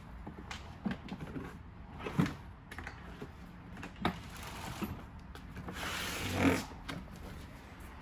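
Handling noises from assembling a quad bike: a few scattered knocks and clicks of parts, then a louder rustling scrape about six seconds in.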